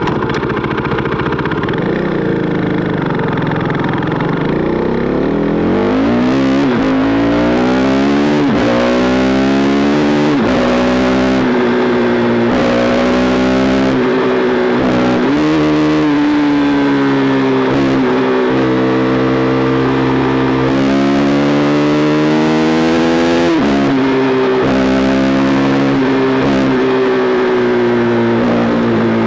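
KTM RC390 single-cylinder engine through an SC Project replica aftermarket exhaust, riding under way. About five seconds in it accelerates, its pitch climbing and dropping back at each of several upshifts, then it runs at a steadier pitch with small rises and falls.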